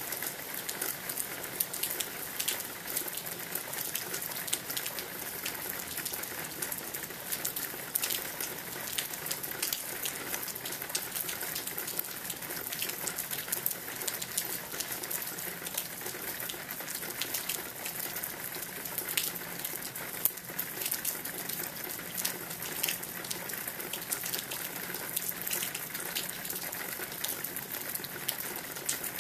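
Steady rain falling, with many sharp individual drop hits heard over the even patter.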